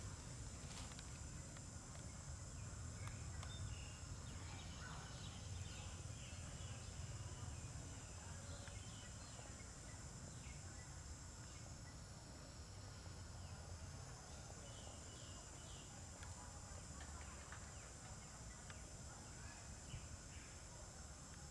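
Steady high-pitched insect drone over a low rumble, with a few faint short chirps scattered through.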